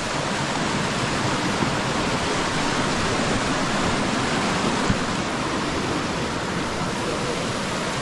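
Steady rushing of fast-flowing water, an even hiss with no let-up. A single brief knock sounds about halfway through.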